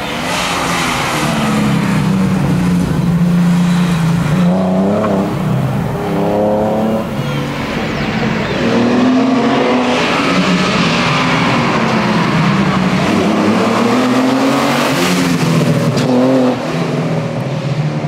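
1973 Valiant Charger E48 Six Pack's 265 Hemi straight-six on triple Weber carburettors, running hard. The engine note climbs and drops in pitch several times as the car accelerates and slows past on the road.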